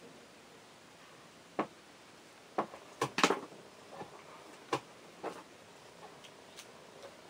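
Scattered short clicks and taps at uneven intervals, with a cluster of louder ones about three seconds in.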